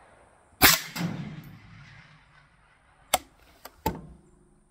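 A single shot from a suppressed PTR 91 .308 rifle with a Q Full Nelson suppressor, about half a second in, with a long fading tail. About three seconds in come three sharp metallic clicks as the rifle's cocking lever is worked back and released to cycle the action by hand.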